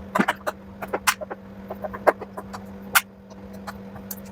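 Irregular clicks and knocks of washer-dryer parts being handled while an LG front-loader washing machine is taken apart, over a steady low hum.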